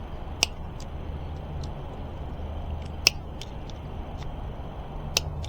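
Hand tools clicking against metal parts of an e-bike brake as it is adjusted: a few sharp clicks, loudest about half a second in, about three seconds in and near the end, with fainter ticks between, over a steady low hum.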